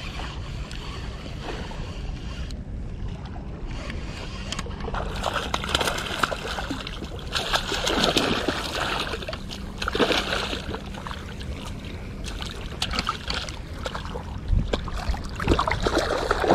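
A hooked sea bass thrashing and splashing at the surface as it is reeled in: bursts of splashing about six to eight seconds in, again around ten seconds, and once more near the end. A steady low hum runs underneath.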